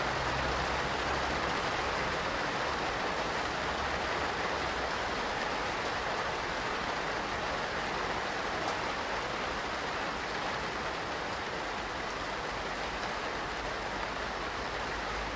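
Steady medium rain falling, an even hiss and patter. A low thunder rumble dies away in the first few seconds.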